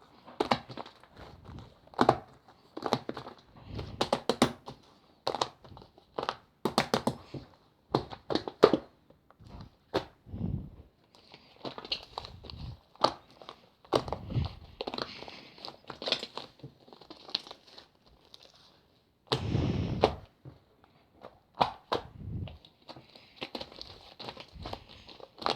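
Slime being squished and worked by hand, giving irregular sticky clicks, crackles and soft pops.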